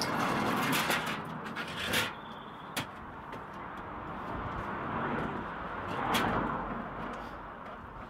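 A metal mesh garden chair being moved and set down on paving, with scuffing and one sharp knock a little under three seconds in, then scuffs and rustling as someone climbs onto the chair and a tall bicycle. Wind noise on the microphone swells around six seconds in.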